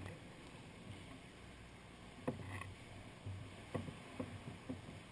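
Sea water lapping faintly around sea kayaks inside a sea cave, with several short sharp slaps of water in the second half.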